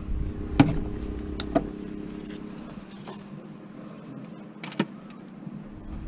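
End-cutting pliers snip through a refrigerator's power cord with one sharp click about half a second in. A few lighter clicks and taps from handling follow, and a double click comes near the end, over a steady low hum.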